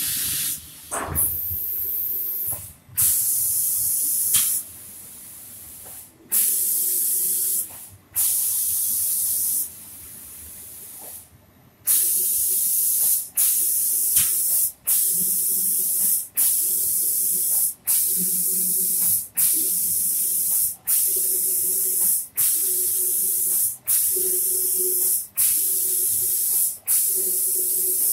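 Automatic spray-painting machine's spray gun hissing as it sprays a finish coat, switching on and off in bursts. The bursts are longer and uneven at first, then from about halfway they come evenly, about once a second.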